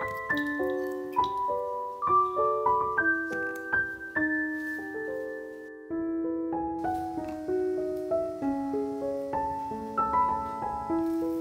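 Background piano music: a light melody of single notes stepping up and down, which dips briefly about six seconds in.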